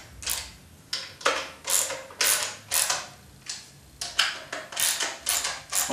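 Hand ratchet wrench tightening a bolt through a wooden board, its pawl clicking in a short burst on each swing, about two swings a second.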